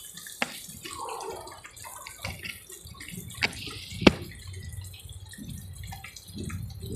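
Faint dripping and splashing of liquid, with three sharp clicks about half a second, three and a half and four seconds in.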